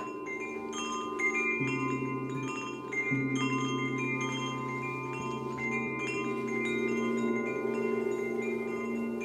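Metal chimes ringing in many overlapping struck notes, played as part of an improvised percussion soundscape. Under them a deep sustained ringing tone comes in about a second and a half in and is struck again about three seconds in.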